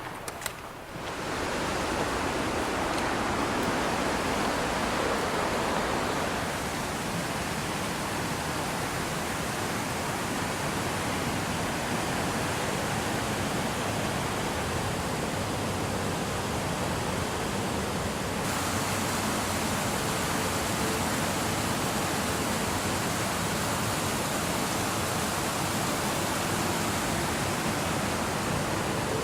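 Steady rush of falling water from a waterfall. It swells up about a second in and changes abruptly about six and eighteen seconds in.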